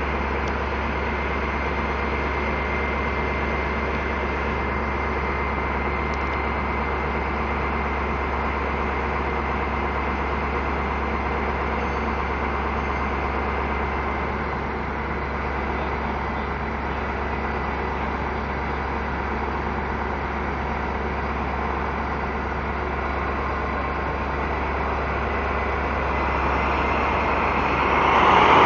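SNCF BB 67000-series diesel locomotive's engine running steadily at idle: a constant low hum with a faint high whine, growing louder near the end.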